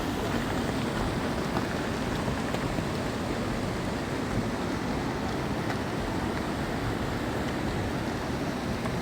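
Steady rush of water, a continuous noise with no break.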